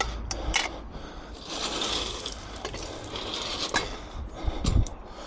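Bent metal swing-seat frame pieces being handled as scrap: metal rattling and scraping, with a few sharp knocks near the start and about four seconds in.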